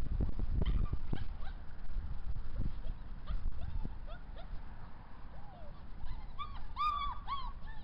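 White Swiss Shepherd puppies, six weeks old, yelping and whining in short rising-and-falling cries that come thicker near the end.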